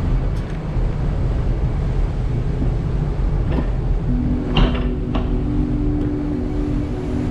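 Steady low rumble on the deck of a bulk carrier underway, engine and wind noise together, with a few light clicks about four and a half seconds in. A steady hum sets in at about the same time.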